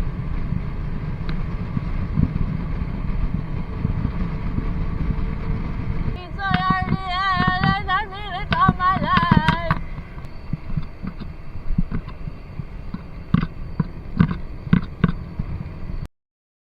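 Low rumble of a motorcycle ride with wind on the action camera's microphone. About six seconds in, a high, wavering voice-like tone runs for about three seconds. Several sharp knocks follow before the sound cuts off abruptly near the end.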